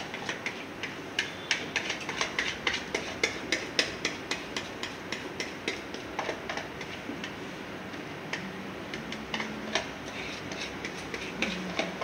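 A utensil tapping and scraping against a plastic mixing bowl while thick cake batter is poured out into a metal cake tin: quick, irregular clicks, busiest in the first half and thinning out later.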